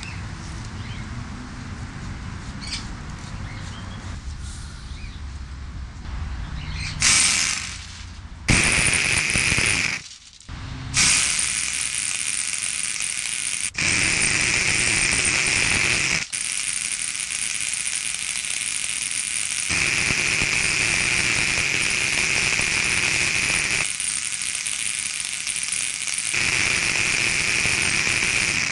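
Airsoft flamethrower firing in long continuous bursts of loud hissing rush, each several seconds long, with brief breaks between them. The firing starts about a quarter of the way in, after a stretch of quieter steady background noise.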